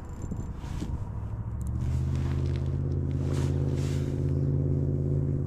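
A motor starts up about one and a half seconds in and then runs steadily at an even, low pitch.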